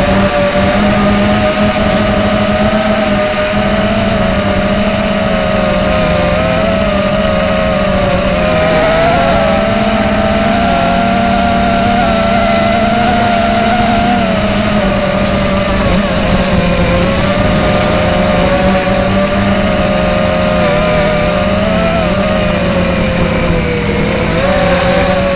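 A mini quadcopter's four RCX 1806 brushless motors spinning 5040 three-blade props in flight, heard from the onboard camera. It is a steady buzzing drone whose pitch wavers up and down with the throttle, dipping briefly a few times.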